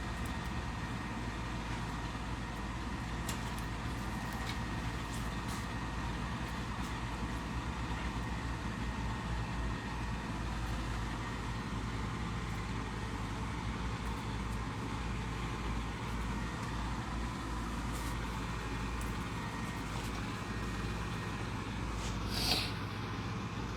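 An engine idling steadily, with a few faint clicks and a brief sharper sound near the end.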